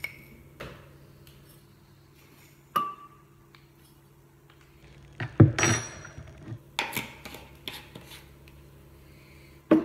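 Kitchenware being handled on a bench while a smoothie is made: scattered knocks and glassy clinks, one ringing clink about three seconds in and the loudest clatter with a brief rustle or hiss about five and a half seconds in, over a faint steady hum.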